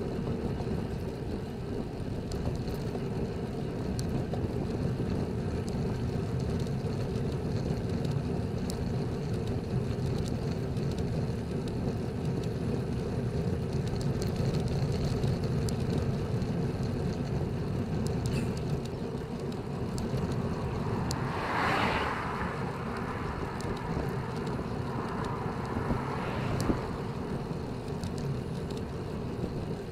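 Steady wind rush and road noise on a bike-mounted camera's microphone while riding a road bike at about 25 km/h. About two-thirds of the way in, two brief louder hissing swells stand out.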